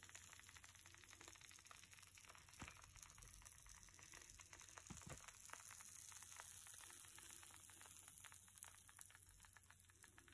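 Near silence with faint scattered crackling: freshly baked enchiladas in red chili sauce sizzling on the plate.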